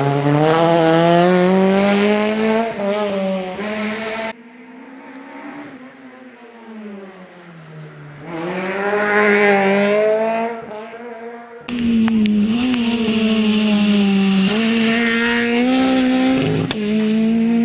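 Peugeot 208 VTi rally car engine revving hard, its pitch climbing and dropping back at each gear change. It is heard in three separate passes: loud and close, then quieter and swelling as the car goes by, then loud and high-revving again.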